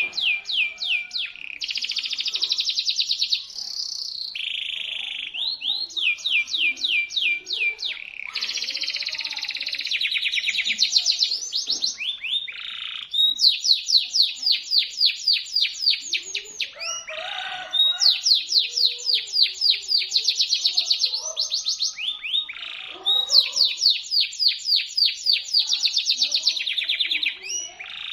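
Canary singing in long rolling trills: fast runs of sharp, high-pitched repeated notes, one phrase after another with only brief breaks between them.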